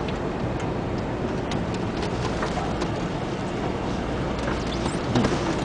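Steady street-traffic and road noise heard from a bicycle moving through congested city traffic, with scattered light clicks and rattles and a few louder knocks near the end.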